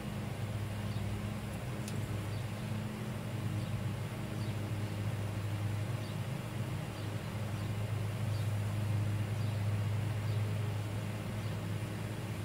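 Steady low background hum, with faint regular ticks a little over once a second.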